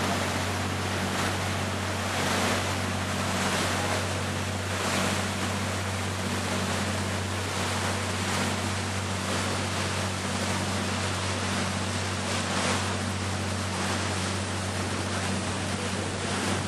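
Tour boat under way: a steady low engine drone under the rush of water past the hull and wind on the microphone.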